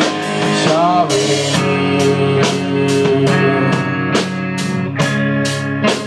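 Live rock band: the singer holds the sung word "sorry" about a second in, then electric guitar chords and bass ring on over a steady drum beat with a cymbal stroke a little over twice a second.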